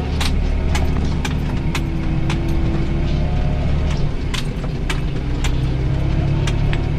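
Tractor engine running steadily, heard from inside the cab as it drives across the field, with frequent sharp clicks and rattles.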